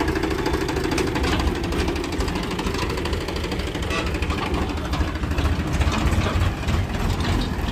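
Powertrac Euro 50 tractor's diesel engine running steadily with a low rumble while it pulls its trolley away.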